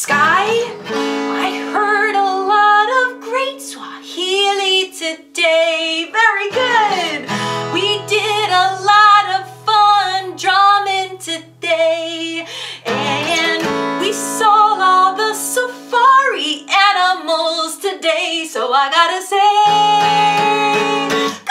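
A woman singing over a strummed acoustic guitar, the chords held a few seconds each.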